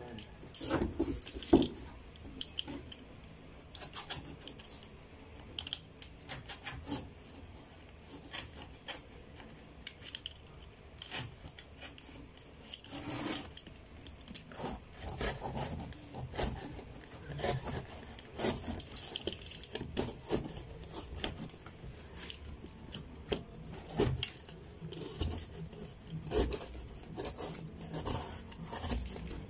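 Irregular light clicks, knocks and scraping, at an uneven pace with short pauses, the loudest knock about a second and a half in.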